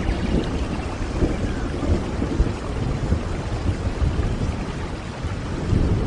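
Forest stream: water rushing steadily, with uneven low surges and rumbling.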